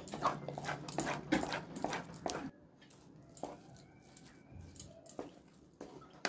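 Wooden spatula stirring and scraping semolina roasting in ghee in a metal kadhai. Quick rough strokes come close together for about the first two and a half seconds, then turn fainter and sparser.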